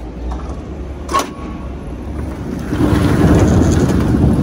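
Apples tumbling out of a tipped wooden bin into an open-top hopper-bottom trailer: a dense rush of rolling, knocking fruit that starts about two and a half seconds in and is the loudest sound. A forklift engine runs low underneath, with a single knock about a second in.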